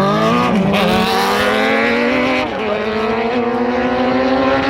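Honda Blackbird sports motorcycle's inline-four engine at full throttle down the drag strip, rising steadily in pitch, dropping sharply once about halfway at an upshift, then climbing again.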